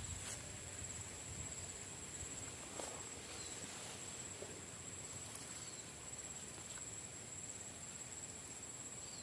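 Steady high-pitched drone of insects, with a few faint clicks.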